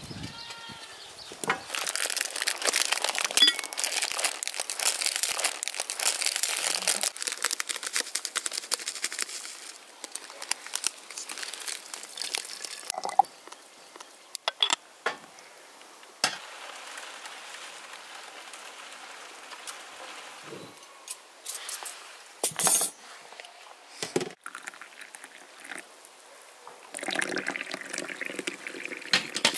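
Crinkling and rustling with many small clicks for the first several seconds, then scattered clinks and taps of tea things. Near the end, water pours from a brass samovar's tap into a porcelain tea cup.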